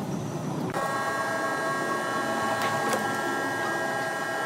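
A machine's steady whine of several tones sets in about a second in and holds, over a background of mechanical noise.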